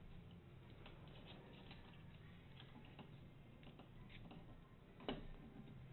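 Faint clicks and light scraping of small metal and plastic lamp-socket parts being worked by hand with a pick, as the push plate is fitted back into the ball lamp housing, with one sharper click about five seconds in.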